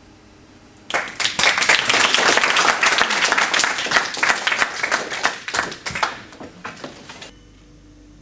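Audience applauding: a burst of clapping starts suddenly about a second in, thins out and ends abruptly near the end.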